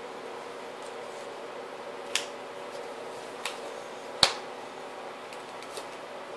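Four sharp clicks or taps, spaced irregularly, the third about four seconds in the loudest, over a steady low room hum.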